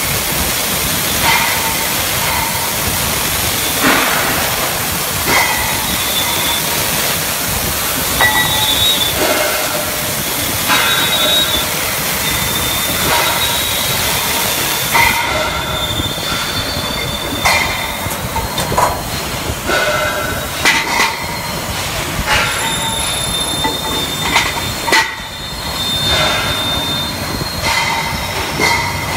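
CNC thread-cutting machine for gas cylinders at work: a steady hiss with frequent short, high metallic squeals and scattered knocks. The top of the hiss drops away about halfway through.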